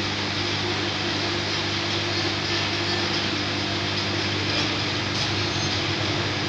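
Steady electrical hum with a constant noise from an induction annealing setup running while it heats a carbon steel U-bend pipe to a red glow.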